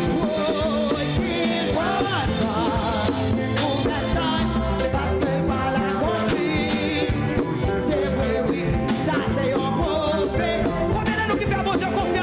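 Church worship band playing an upbeat song with a steady beat, with singing voices over it.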